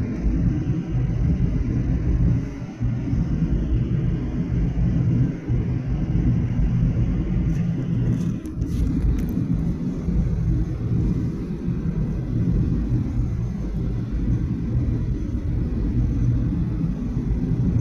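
Steady low rumble of cabin noise inside a Boeing 737-800 airliner, with a few faint clicks about halfway through.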